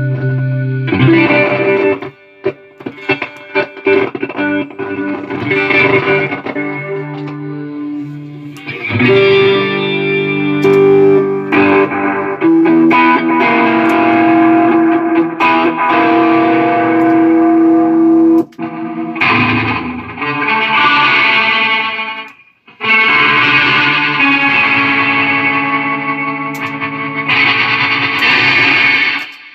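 Electric guitar played through a Line 6 Helix multi-effects processor with a distorted tone, sound-testing the unit after repair. Short choppy chords for the first few seconds, then longer held notes and chords, with brief breaks about two thirds of the way through.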